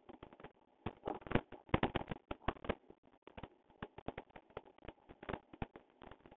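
Skipping rope slapping the ground in quick, uneven clicks, several a second, as a child jumps rope.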